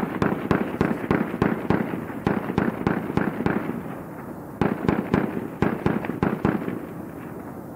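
Very loud rapid gunfire from another shooter, a few shots a second in two long strings with a short pause about four seconds in, fading away near the end.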